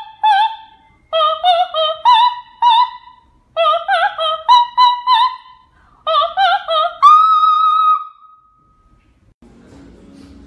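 Very high-pitched singing in an operatic style: four short phrases of quick notes, the last ending on a long held note. A faint low hum starts just before the end.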